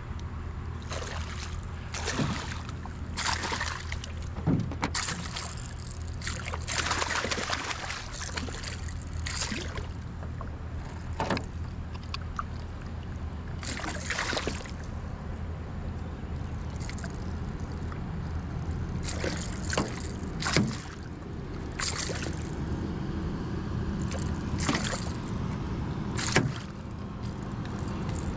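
A hooked fish splashing and thrashing at the surface beside a kayak as it is brought in, with irregular splashes over a steady low rumble of river water.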